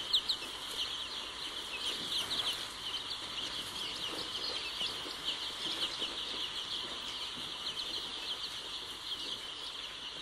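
A flock of young chicks peeping together: a dense, continuous chorus of short, high-pitched cheeps from many birds at once.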